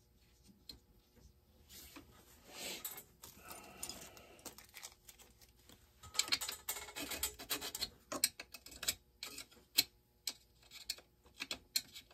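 Handling noise from a Husqvarna 572 XP chainsaw being worked over and wiped with a rag on a workbench: faint rubbing and scattered light clicks and knocks, coming thick and fast from about six seconds in.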